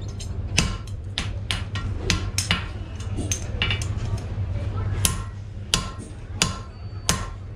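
Hand hammer blows on red-hot steel on a 357 lb Fisher anvil, each strike with a short metallic ring, while forging the eye of a hammer head. The blows come quickly, about three a second, in the first half, then slow to single strikes about two-thirds of a second apart.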